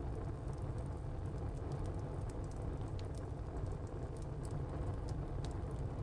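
Wood fire burning in a tile stove: a steady low rumble with frequent small, sharp crackles of the burning wood.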